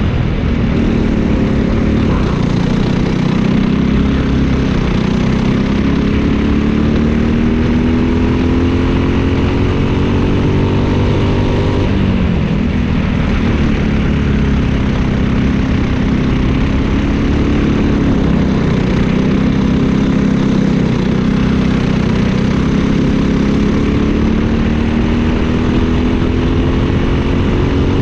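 Briggs & Stratton LO206 single-cylinder four-stroke kart engine at racing revs, heard onboard. Its pitch climbs slowly, drops sharply about twelve seconds in, then climbs again, with another brief dip near twenty seconds.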